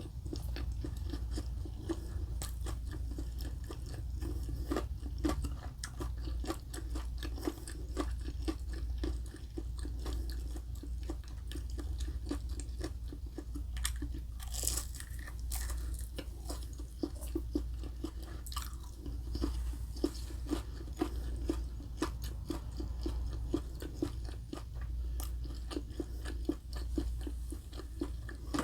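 Close-miked mouth sounds of a person chewing food, with crisp crunches and wet clicks throughout and a louder crunch about halfway through.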